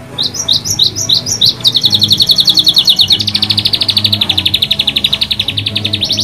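Domestic canary singing in fast rolling trills, the kind of song played to stimulate other canaries to sing. A few separate chirps lead into a rapid trill, which shifts to a slightly lower, faster trill about three seconds in and jumps higher near the end.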